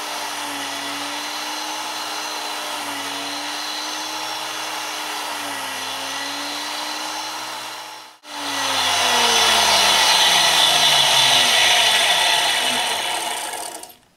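Tool and cutter grinder running, its wheel grinding a flat onto a carbide rod blank: a steady machine sound with a tone that slowly wavers. After a break about 8 seconds in, it comes back louder and hissier, its pitch falling steadily as the machine runs down, and it dies away near the end.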